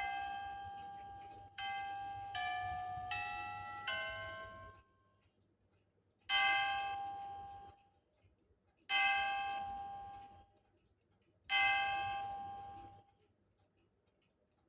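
Battery-powered Engstler mini cuckoo clock's electronic chime: the last notes of a four-note chime phrase, then three single bell strikes about two and a half seconds apart, each ringing out and fading.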